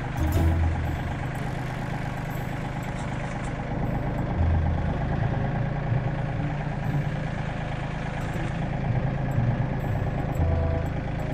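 Yanmar 30-horsepower tractor's diesel engine running steadily at low revs as the tractor moves slowly, with a few short low thuds.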